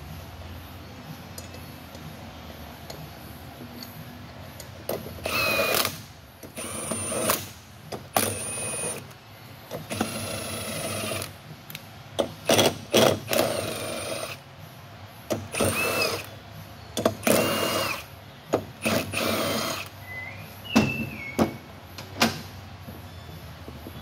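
Hand-held power tool run in about a dozen short bursts, each a second or less, its motor whining up with each pull of the trigger, as nuts are spun on the studs of a wheel hub. The bursts begin about five seconds in and stop a couple of seconds before the end.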